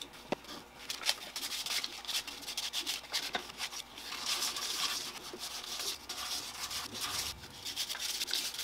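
Sandpaper rubbed by hand over a 3D-printed PLA plastic orb shell, a continuous run of quick, scratchy back-and-forth strokes.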